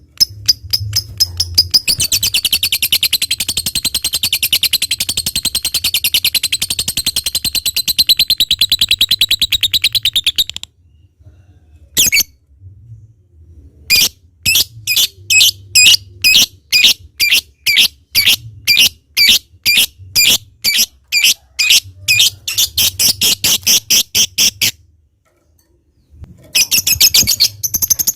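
A lovebird's long, fast, high-pitched chattering trill (the keepers' 'ngekek panjang') runs for about ten seconds and then stops. After a short pause it gives a string of separate sharp chirps, about two to three a second, and breaks into fast chatter again near the end.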